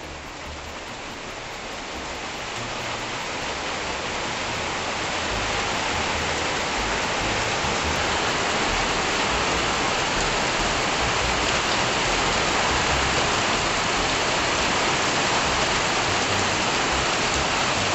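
Heavy rain falling, a steady hiss that builds over the first five seconds or so into a full downpour, with water dripping off the roof edge.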